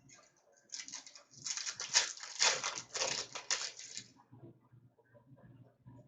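Crinkling and rustling of trading-card pack wrappers and cards being handled, a dense crackle for about three seconds, then a few faint small clicks.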